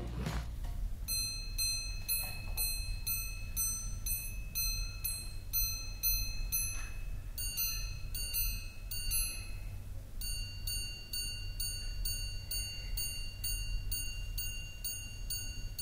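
Square-cased tourbillon minute repeater wristwatch chiming the time on its gongs: a run of quick, evenly spaced ringing strikes, a short run with a different pattern, and after a brief pause a second long run, for the hours, quarters and minutes. The striking is a little fast, its pace set by the repeater's inertia regulator.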